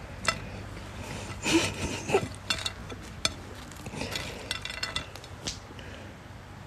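Irregular clinks, taps and scrapes on a ceramic plate as a hand picks through a pile of french fries, loudest a second or two in.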